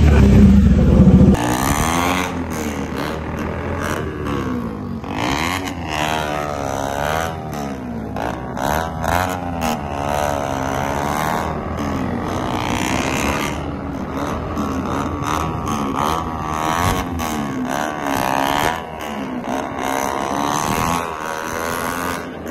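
KTM RC motorcycle running through a loud M4 aftermarket exhaust, revved up and down again and again while riding. There is an abrupt change in the sound about a second in.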